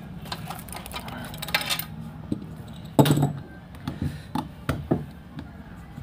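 Scattered sharp clicks and taps of hard plastic as the opened Jio Phone body is handled and set on the repair mat, with one louder knock about three seconds in.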